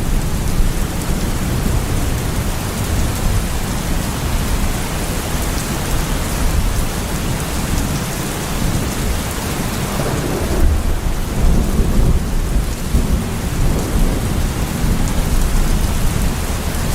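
Heavy rain falling steadily with thunder rumbling low throughout; the rumble swells louder about ten seconds in.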